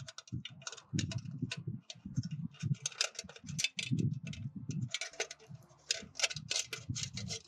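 Irregular metallic clicks and light taps, several a second, with dull low knocks among them, as hold-down clamps are handled and fitted onto a stainless steel transducer mounting frame clamped to a pipe.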